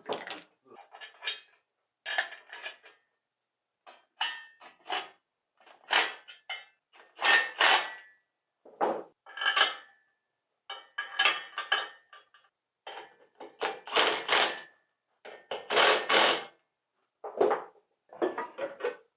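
Steel engine stand parts and bolts clanking and clinking as they are handled and fitted together, in irregular bursts, some ringing briefly.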